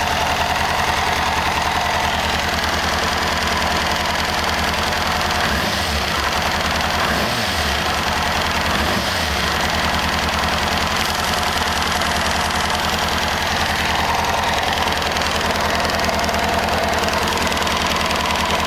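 1998 Kawasaki ZX-6R inline-four engine idling with its fuel tank off, a clicking noise still present after a valve adjustment though not very noticeable. The engine note wavers briefly partway through, then settles back to a steady idle.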